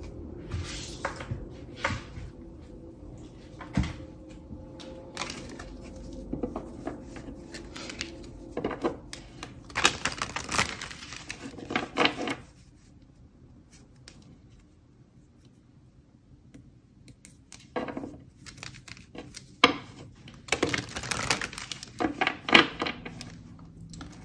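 A deck of cards being handled and shuffled by hand: scattered clicks and taps, with two longer bursts of dense, rapid card clicking, one near the middle and one near the end.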